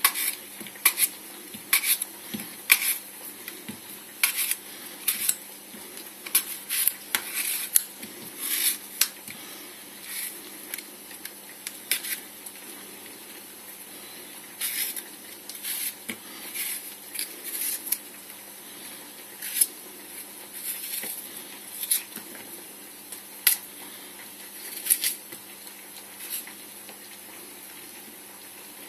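A kitchen knife cutting slices off a raw apple held in the hand: irregular, sharp, crisp clicks, sometimes in quick runs and sometimes spaced out, with a couple of short pauses.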